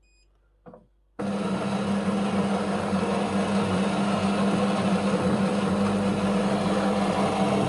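Siemens EQ.300 fully automatic coffee machine preparing a coffee. A short beep at the start, then about a second in the machine starts abruptly and runs with a loud, steady hum.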